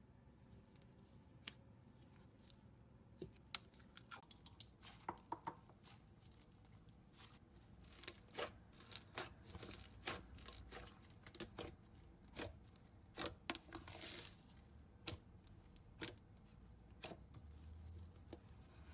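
Slime being squeezed and stretched by hand, giving off irregular small pops and crackles, quiet but crisp, thickest in the middle stretch.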